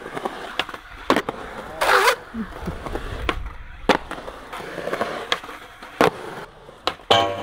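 Skateboard wheels rolling on a concrete skatepark bowl, with several sharp clacks of the board and trucks hitting the surface. There is a longer scrape about two seconds in and a loud grinding scrape near the end as the board rides the coping.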